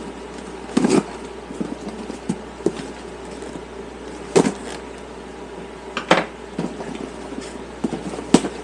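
Packaging being handled and opened: irregular knocks, clatters and rustles, with the loudest knocks about a second in, about halfway, and near the end, over a steady low hum.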